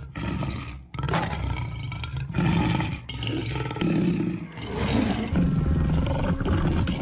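Lion roaring and growling in a run of deep, rough surges, one every second or so.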